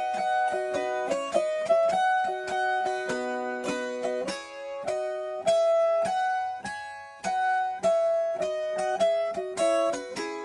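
Instrumental background music: a plucked string instrument plays a quick melody of single notes, each struck sharply and left ringing.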